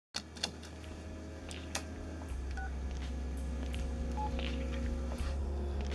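Touch-tone telephone being dialed: two short keypad beeps over a steady low hum and scattered faint clicks.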